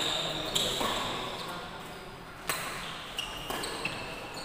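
Badminton rally: sharp racket strikes on the shuttlecock, the loudest about halfway through, with lighter knocks and squeaks of court shoes on the floor. The hall adds a short echo after each hit.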